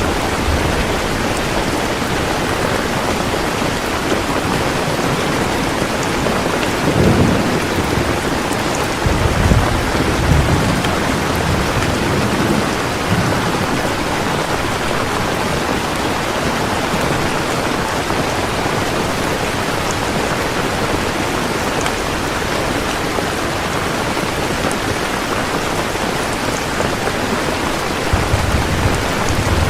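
Heavy rain falling steadily, with low rumbles of distant thunder coming and going about a quarter of the way in, again through the middle, and near the end.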